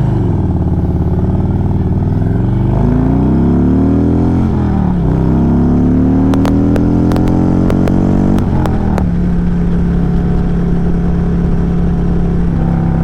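Harley-Davidson Road Glide's V-twin engine accelerating hard through the gears. The pitch climbs, drops at an upshift about four and a half seconds in, climbs again, then drops at a second shift about nine seconds in and settles to a steady cruise. A few sharp clicks come between about six and nine seconds.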